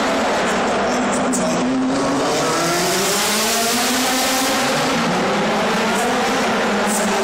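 V8 engines of an Audi A4 DTM and a Mercedes-Benz DTM race car lapping a tight stadium circuit. The engine notes rise and fall again and again as the cars accelerate out of the corners and lift for the next, over a steady hiss.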